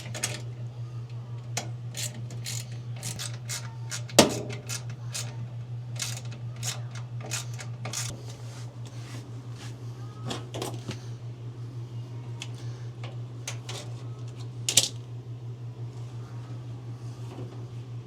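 Splendide RV dryer drum turned by hand to test a newly fitted belt: irregular clicks, rattles and small knocks from the drum, belt and motor fan, with two louder knocks about four seconds in and near the end. A steady low hum runs underneath.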